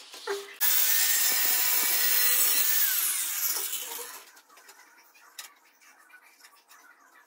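An electric power tool cuts in suddenly about half a second in and runs loudly with a hiss and a steady hum. It winds down with a falling whine and dies away about four seconds in, leaving faint scrapes and taps on the tiled wall.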